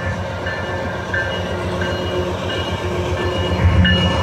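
GE AC4400CW diesel-electric locomotive passing close by at the head of a freight train, its engine rumble growing louder about three and a half seconds in as it comes alongside.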